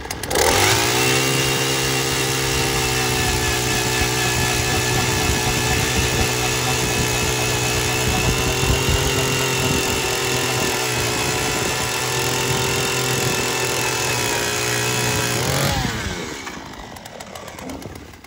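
Power ice auger drilling through lake ice, its motor running steadily under load. Near the end the motor briefly speeds up and then winds down as the bit breaks through and water wells up the hole.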